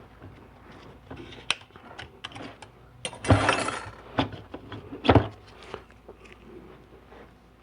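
Metal clutch plates from a 4L80e transmission's fourth clutch pack clinking and sliding as they are handled. There are scattered light clicks, a louder scraping rattle about three seconds in, and a sharp clack about five seconds in.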